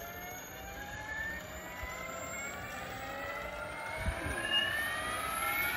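SAB Goblin Kraken electric RC helicopter spooling up on the ground: the whine of its motor and drivetrain rises steadily in pitch as the three-blade main rotor gathers speed. A brief low thump about four seconds in.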